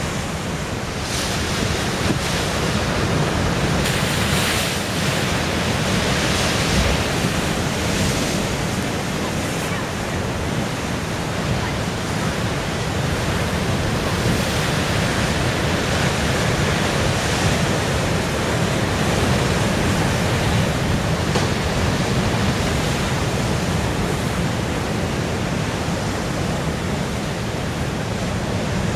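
Ocean surf breaking and washing over a rocky shore, swelling in surges every few seconds, with wind rumbling on the microphone.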